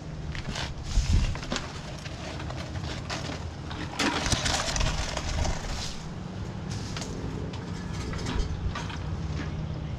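Dove cooing over a steady low hum, with scattered clicks and a stretch of rustling and crunching of leaves and debris about four seconds in.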